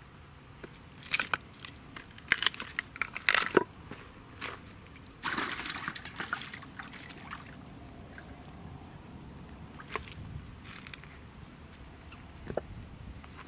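A run of sharp knocks and clicks. About five seconds in comes a splash and slosh of water lasting a second or so, followed by a few fainter clicks and small water sounds.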